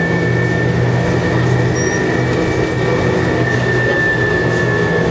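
Vehicle interior noise while driving: the engine and drivetrain running steadily with a low hum and a steady high whine over road noise.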